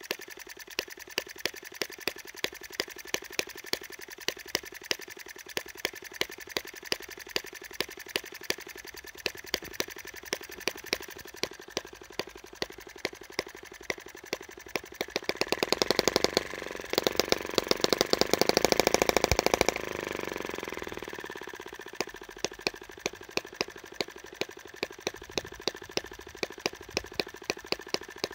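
Microcosm M12 (Eachine ET5) miniature single-cylinder petrol engine at a very slow idle, each firing a separate sharp pop, two or three a second, with its big flywheels carrying it between firings. About fifteen seconds in it speeds up into a quicker, louder run for some five seconds, then slows back to the slow pop-pop idle.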